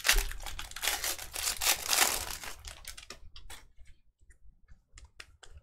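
Trading-card pack wrapper being torn open and crinkled, followed by a few light clicks and taps as the cards are handled.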